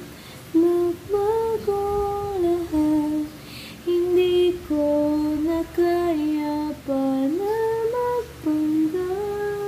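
A woman humming a slow, gentle melody, a song she uses as a lullaby to calm the dog. She holds each note and moves in small steps, with short breaths between phrases and a long held note near the end.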